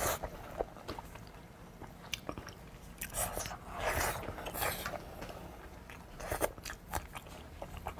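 Close-up eating sounds of a person biting into and chewing braised beef tendon: irregular wet bites and chews, busiest about three to five seconds in and again briefly near six and a half seconds.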